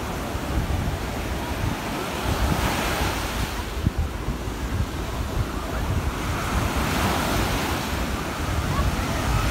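Sea surf breaking and washing up the shore, swelling twice as waves come in, about two and a half seconds in and again from about six and a half seconds. Wind buffets the microphone throughout.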